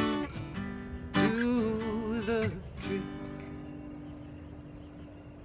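Acoustic guitar strumming the song's closing chords, with a voice holding one long wavering sung note from about a second in. A final strummed chord then rings out and slowly fades.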